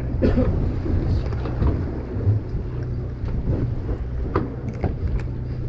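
Steady low rumble of a fishing boat's engine, mixed with wind on the microphone, with a few light knocks and clicks on deck in the second half.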